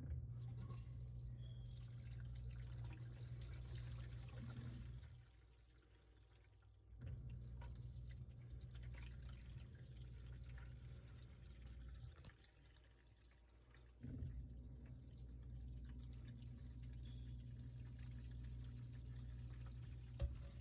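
A Whirlpool dishwasher's drain pump humming with water running through it. It runs in three stretches, stopping for about two seconds at roughly 5 s and again at 12 s.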